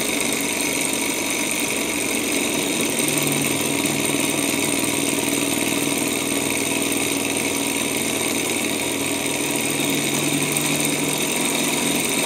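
Small dual-piston Stirling engine with a propeller running steadily on its alcohol-burner flame, a constant mechanical whir of pistons and spinning propeller. It is running consistently but below its top speed.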